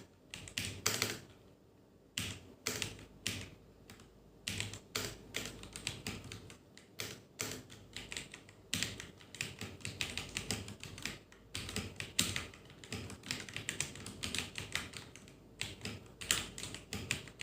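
Typing on an iMICE GK-690 mechanical keyboard: a quick, irregular run of key clicks, with brief pauses between bursts about two seconds in and near the end.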